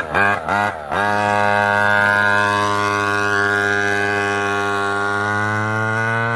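Small 49cc two-stroke pocket ATV engine revved in a few short blips, then held at full throttle from about a second in as the quad pulls away, giving a steady, high-pitched buzz.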